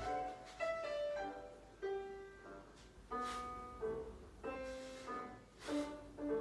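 Piano music in a classical style, played as accompaniment for a ballet barre exercise, with chords struck about once or twice a second.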